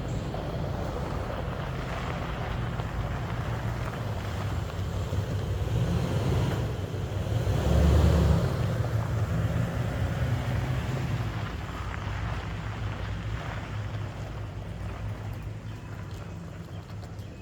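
A vehicle's engine running steadily, with wind buffeting the microphone; the sound swells louder about eight seconds in, then eases off.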